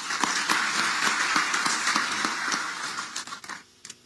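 Applause from a seated assembly, many hands clapping at once, dying away near the end.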